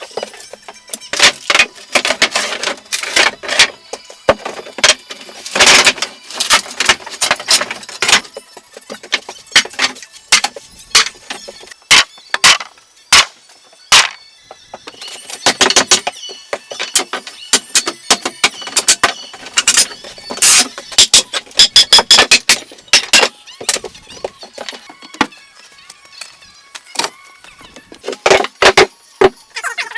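Rapid, irregular knocks and clatter of woodworking on a log cabin: many sharp wooden impacts in quick succession.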